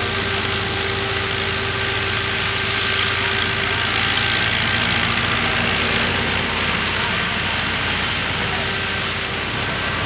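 Tractor engine running steadily while driving a corn thresher, together with a dense, steady rushing hiss from the threshing machinery.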